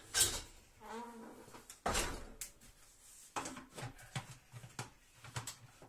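Knocks and clatter of the plastic lid being handled and fitted onto the mixing bowl of a Monsieur Cuisine Connect kitchen machine, with a sharp knock about two seconds in and several lighter clicks after.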